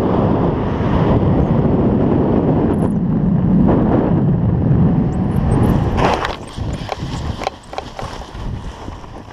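Rushing wind on the microphone during a speed wing's fast final glide. About six seconds in the rush cuts away at touchdown and gives way to scuffing and crunching of feet and gear on dry, gravelly dirt.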